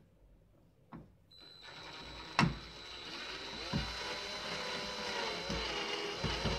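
Cordless drill-driver running, driving a screw. Its motor whine starts about a second and a half in, with a sharp click a second later, and its pitch shifts as the screw takes up load.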